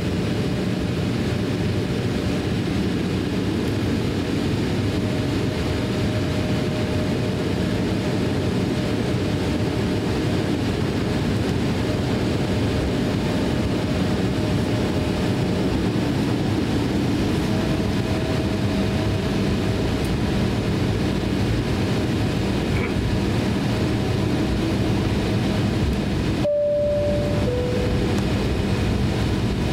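Cabin noise of an Embraer E170 taxiing: the steady low rumble of its two GE CF34 turbofans at taxi power and the aircraft rolling, with faint whining tones that come and go. The sound drops out for an instant about 26 seconds in.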